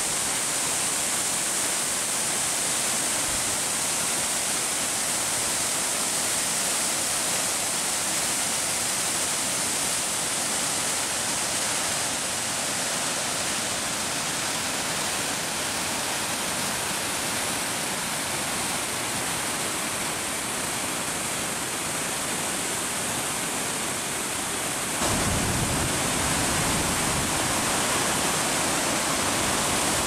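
Rushing water of Oshinkoshin Falls and the whitewater stream below it: a steady, even rush of falling water. About 25 seconds in it turns louder, with a deeper rumble added.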